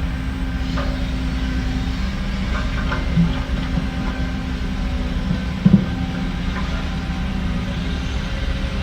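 Diesel engine of heavy earthmoving machinery running steadily with a low drone. Two short clanks come through, the louder one near the end.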